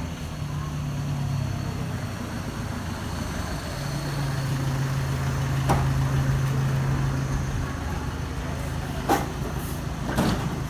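A motor vehicle engine running steadily with a low hum that shifts pitch a few times, and a few short clicks or knocks in the second half.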